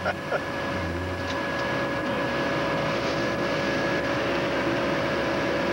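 Snowcat engine running steadily, heard from inside the cab, with a steady whine over the drone.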